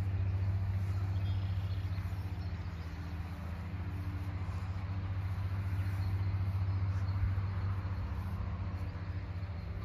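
A steady low engine hum, unchanging throughout.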